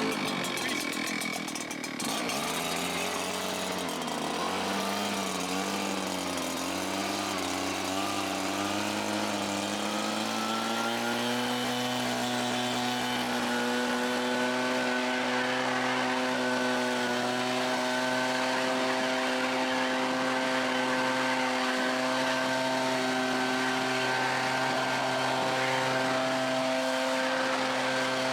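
Small two-stroke engine of a handheld power tool running; its pitch wavers up and down for about the first ten seconds, then holds steady at high speed.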